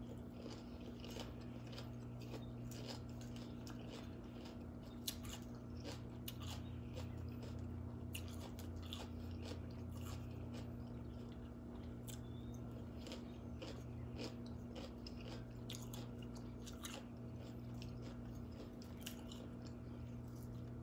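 A person chewing a crunchy raw vegetable salad, with many short crisp crunches close to the microphone, over a steady low hum.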